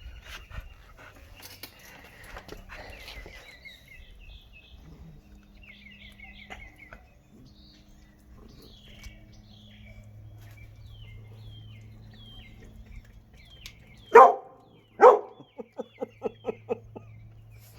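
Dog barking twice, loud and sharp, then a quick run of shorter barks: a dog warning another off its raw fish.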